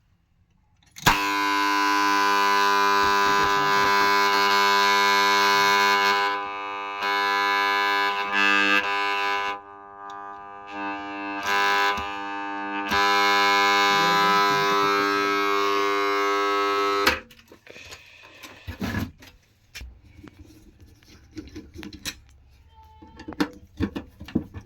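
Submersible pump control panel box giving off a loud electrical buzz with many overtones. It starts about a second in, drops away briefly a few times, and cuts off suddenly well before the end, after which there are scattered light clicks and handling noises.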